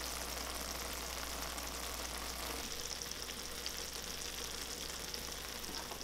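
Cheese dakgalbi, spicy stir-fried chicken under melting mozzarella, sizzling steadily in a hot pan, with a fine continuous crackle.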